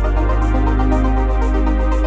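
Electronic background music with a steady beat and sustained synth notes.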